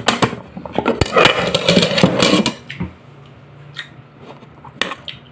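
Knocks and rubbing handling noise close to the microphone, loudest for about a second and a half near the start, then a faint low hum with a few scattered clicks.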